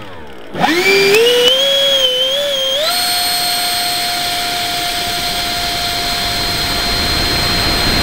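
Engine of a radio-controlled F-86 Sabre model jet spooling up for takeoff. A whine dips, then climbs in steps over about two seconds to a steady high pitch at full power. Wind and wheel rush on the runway build near the end as the plane speeds up.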